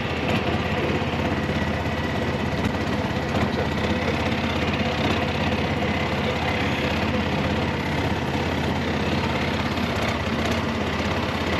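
Motorboat engine running steadily at an even pace.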